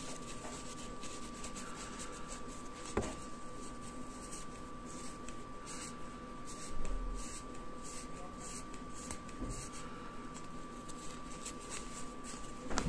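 Tissue paper rustling and rubbing as a small DC motor's metal housing is handled and wiped clean, with a sharp click about three seconds in and a low bump near seven seconds. A faint steady hum runs underneath.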